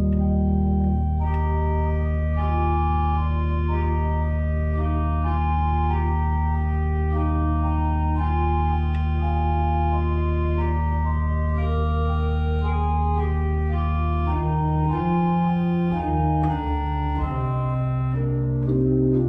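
Organ played on manuals and pedals: a long-held low pedal note drones beneath a moving melody. About fifteen seconds in the bass shifts, settling on a new sustained pedal note.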